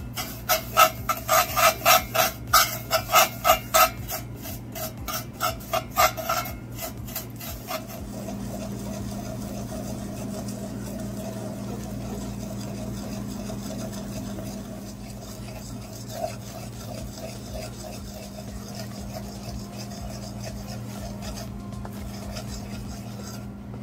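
A spoon scraping sugar around the bottom of a metal pot in quick strokes, about three a second, as the sugar is caramelized. After about eight seconds it eases into quieter, steady stirring as the sugar melts into caramel.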